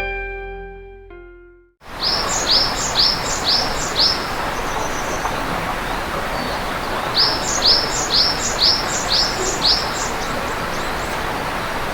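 A bird calling in two bouts of quick, repeated high notes, each note sweeping downward, over a steady rushing noise. Guitar music fades out at the start.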